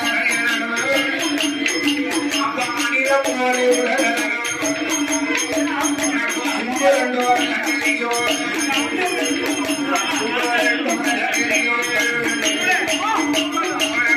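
Villupattu bow-song music: jingling bells and rattling hand percussion keep a fast, even beat under a held low tone, with a voice or melodic line singing over it.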